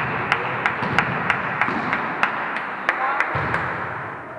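Steady rhythmic clapping, about three claps a second, over a background of voices. The clapping fades out near the end.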